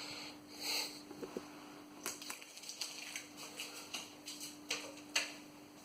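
Diecast toy vehicles and their packaging being handled: scattered light clicks and knocks and a brief rustle near the start, over a faint steady hum.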